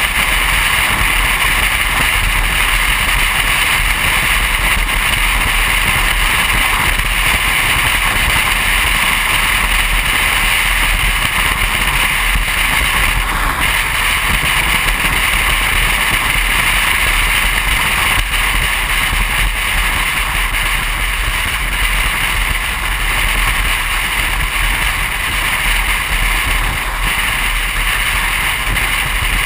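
Steady wind rush and road noise from a car driving at highway speed, picked up by a camera mounted on the car, with a low rumble and an even hiss throughout.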